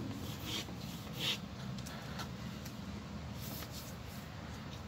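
Pencil drawing on paper: a few short scratchy strokes and paper rubs, the strongest about a second in, over a steady low hum.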